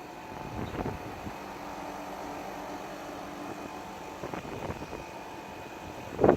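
Mitsubishi Heavy Industries SRK09CRR-S3 air conditioner indoor unit running, a steady hum of fan and airflow with faint steady tones. A few light knocks about a second in and again around four to five seconds, and a sharp knock just before the end.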